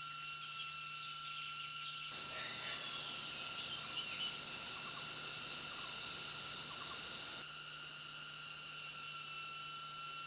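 Forest ambience: a steady high-pitched insect drone, joined from about two to seven seconds in by a soft hiss and a few faint chirps.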